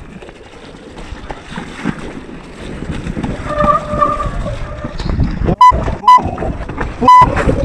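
Mountain bike riding down a wet, rocky trail, heard from an action camera on the rider: wind on the microphone and a rough rumble of tyres and bike over rock, growing louder about halfway through. Near the end, three short, loud beeps cut in.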